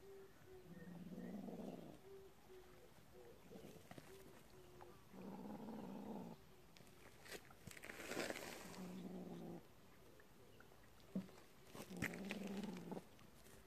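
A kitten growling low over a mole it has caught, in spells of about a second, four times.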